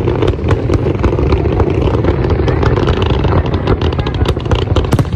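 Fireworks barrage: a dense, continuous rumble of launches and bursts overlaid with many sharp crackling pops, the crackles coming thicker near the end.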